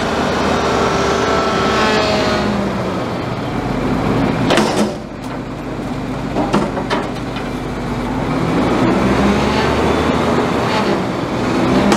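McNeilus front-loader garbage truck's diesel revving up to drive the hydraulic arms as they lift a dumpster over the cab, with sharp metallic bangs about halfway through as the dumpster tips into the hopper, and more clanks near the end.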